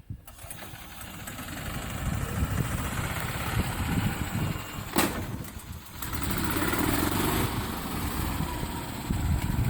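Yamaha G23A utility cart engine running as the cart is driven. The sound builds over the first couple of seconds. About five seconds in there is a sharp knock, and the engine sound drops briefly before picking up again.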